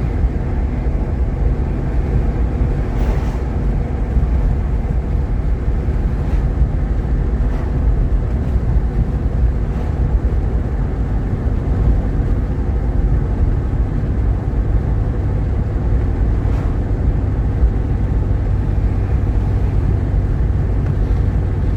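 Steady engine and road rumble inside the cabin of a Jeep Grand Cherokee with its 3.7 L V6, driving at an even pace.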